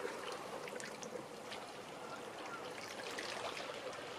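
Small waves lapping and trickling among the rocks and pebbles at the water's edge: a steady wash full of small splashes and ticks.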